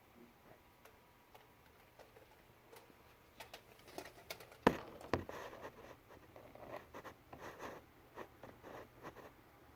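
Light, irregular taps, scratches and scuffles, likely kittens moving and playing, growing busier partway through, with one sharp thump near the middle.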